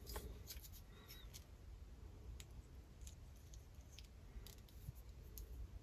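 Faint, scattered small clicks and ticks of fingers handling and turning a plastic LEGO minifigure, over a low hum.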